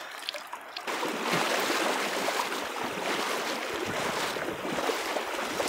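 Shallow river water rushing over a gravel riffle, a steady hiss-like rush that comes in suddenly about a second in and holds without break.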